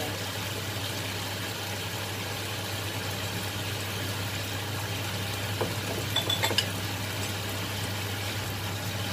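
Sauce simmering in a frying pan, an even hiss over a steady low hum, with a few light clicks of a metal spoon against the pan about six seconds in.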